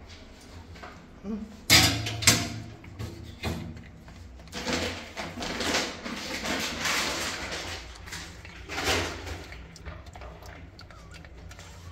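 Plastic pet carrier being handled: two sharp knocks of the lid and rim about two seconds in, then stretches of rustling and scraping.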